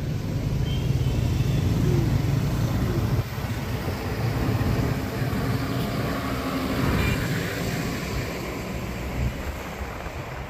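Road traffic heard from a moving car: a steady low rumble of engines and tyres, passing a large coach bus.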